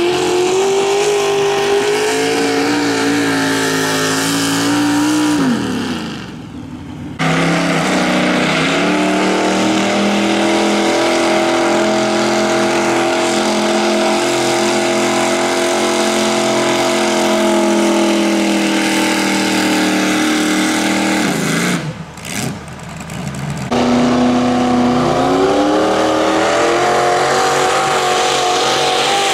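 Modified pulling-tractor engines running loudly, their pitch wandering up and down and climbing near the end. The sound drops away sharply twice, about six and twenty-two seconds in.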